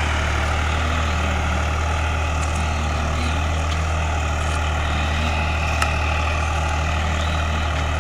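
New Holland 55 HP tractor's diesel engine running steadily while it pulls a ridging implement through a cane field. There is one sharp click about six seconds in.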